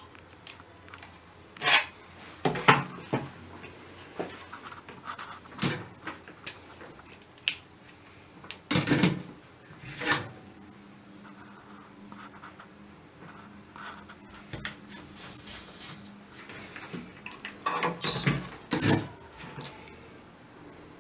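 Handling noise from a TV power-supply circuit board being worked on and turned over on a bench: a handful of separate knocks and clatters, the loudest near the start, around the middle and near the end, with quiet rubbing between them.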